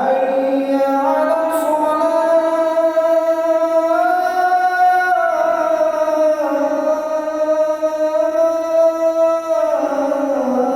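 Adhan (Islamic call to prayer) sung in the Kurdi melodic mode by a single muezzin with a dry voice and no added effects. It is one long melismatic phrase that starts suddenly, steps up in pitch during the first few seconds, holds and sways, then steps down and slides lower near the end.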